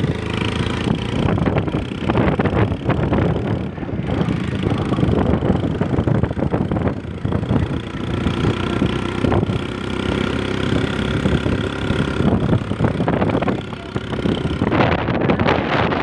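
A motor vehicle's engine running steadily under a constant wash of road and wind noise while driving.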